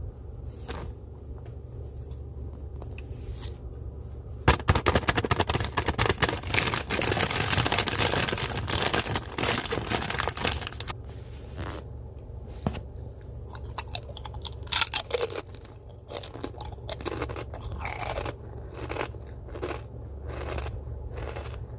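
Crunchy snack being eaten: crunching and chewing. A dense stretch of crackling runs from about four seconds in for several seconds, then separate crunches follow, over a steady low hum.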